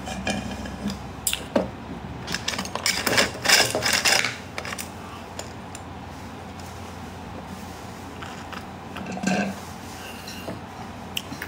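A metal tumbler with a straw being handled and sipped from: a run of clicks and rattles, loudest about three seconds in, then a smaller clatter near the end as it is set down.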